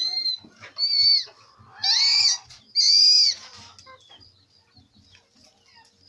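Chickens squawking: four loud, high-pitched calls, each rising and falling, in the first three and a half seconds, then faint scattered chirps.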